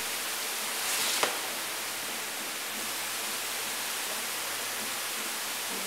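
Radish-bunch washing machine running: steady hiss of water spraying over the bunches on the conveyor, with a low motor hum beneath. A brief louder surge about a second in ends in a sharp click.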